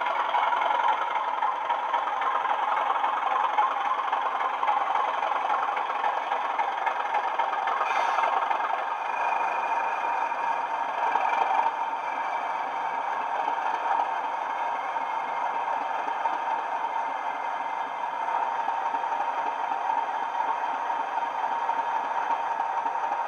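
Bachmann Class 37 model's DCC sound decoder playing a recorded English Electric diesel engine through the model's small onboard speaker as the locomotive runs. There is a brief high squeal shortly before it comes to rest about twelve seconds in, after which the engine sound carries on a little quieter at idle.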